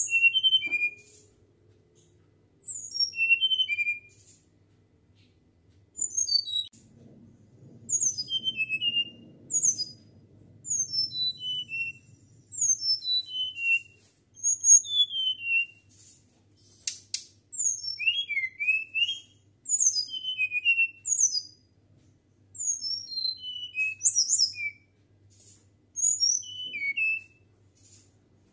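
A flycatcher (sikatan) singing in a flute-like whistle: about a dozen quick phrases of high, falling whistled notes, separated by short pauses.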